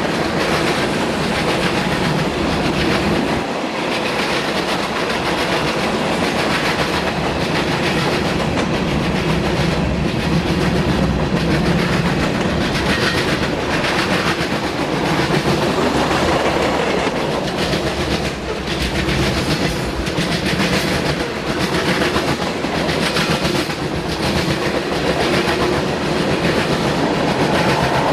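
Freight cars of a Canadian National train rolling past close by, with a loud, steady clatter of steel wheels and repeated clacks as the wheels cross the CSX diamond crossing.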